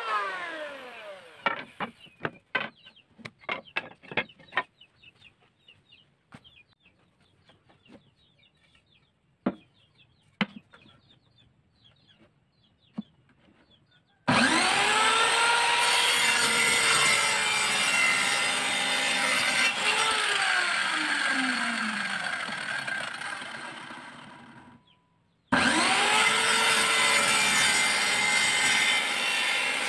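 An electric hand planer winds down, followed by scattered sharp knocks of teak pieces being handled. About halfway through, an electric compound miter saw starts up loud and runs while cutting teak, slowly winding down. A few seconds later it starts again and runs.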